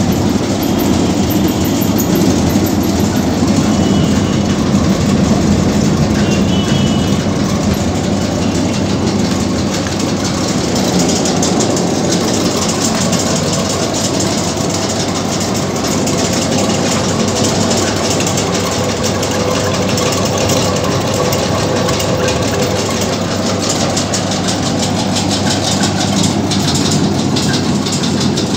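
Electric-motor-driven paddy thresher running, its threshing drum spun by belt from the motor: a loud, steady hum with a fast, even rattle.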